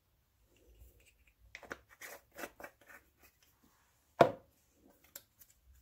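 Light clicks and scrapes of a teaspoon and spice containers handled on a kitchen counter, then one sharp knock about four seconds in.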